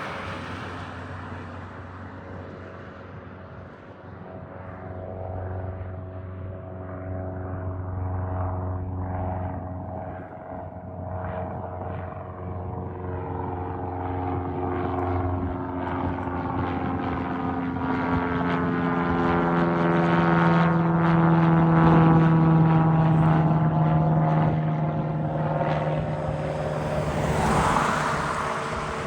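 Cessna 172S Skyhawk SP's four-cylinder Lycoming engine and propeller at takeoff power, a steady propeller drone. It grows louder, and higher in pitch, through the middle of the run, peaks about two-thirds of the way in, then eases off with a rushing sound near the end as the aircraft goes by.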